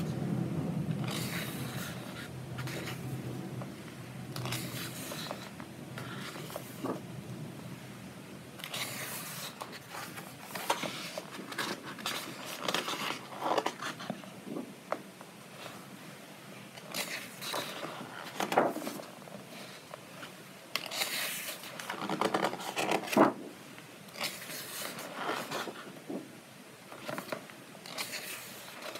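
Pages of a paperback colouring book of sturdy, medium-weight paper being turned one after another: a series of short papery swishes and scrapes, one every second or two.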